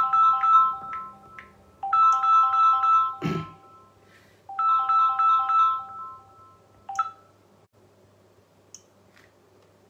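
Mobile phone ringtone: a short beeping melody on three pitches, played three times with short pauses, then stopping about seven seconds in. A single knock sounds about three seconds in.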